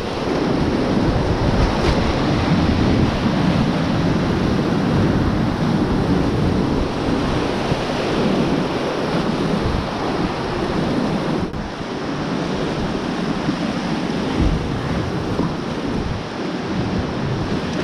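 Whitewater rapids rushing loud and steady around a kayak, heard close up at water level. The rush dips briefly about two-thirds of the way through.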